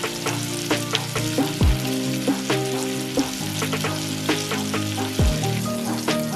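Floured fish fillets sizzling in butter and olive oil in a frying pan, with scattered spits and pops. Background music plays over it.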